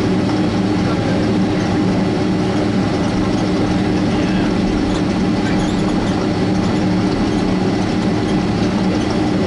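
Boeing 767-300 taxiing, heard inside the cabin: its jet engines at idle make a steady hum with two low tones over a rumble.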